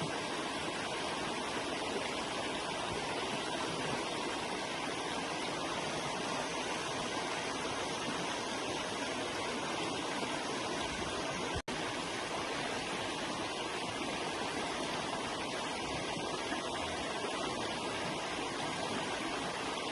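River water flowing steadily over rocks, an even rushing sound. It cuts out for an instant about halfway through.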